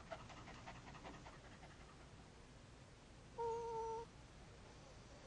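A small shaggy dog gives one short, steady whine a little past halfway, after a stretch of faint quick ticking.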